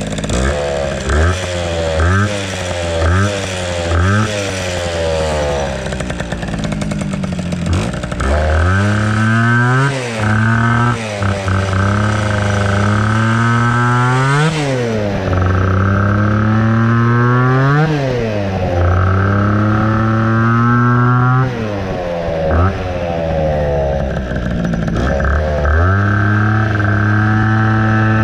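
Small two-stroke moped engine running and being revved over and over, the pitch climbing to a sharp peak and dropping back every few seconds.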